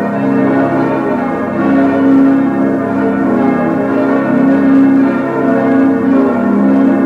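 Full peal of six bronze church bells, cast by Schilling of Heidelberg in 1958 and tuned A♭–B♭–D♭–F–A♭–B♭, all ringing together. Their strokes overlap continuously at an even level.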